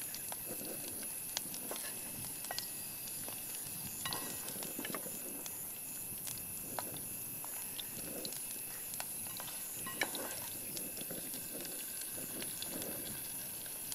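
Hot cooking oil sizzling steadily, with scattered small crackles and pops.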